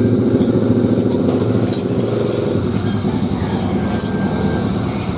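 An engine running steadily, weakening about two and a half seconds in, with a thin steady high-pitched tone throughout.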